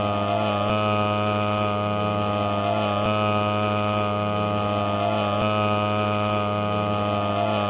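A steady, loud buzzing hum with many overtones, with a faint pattern repeating about every two and a half seconds.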